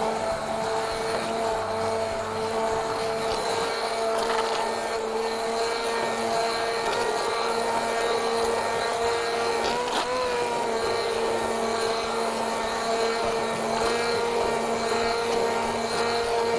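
Electric hand blender running steadily as it purées tomatoes in a frying pan, its pitch wobbling briefly about ten seconds in; it cuts off at the end.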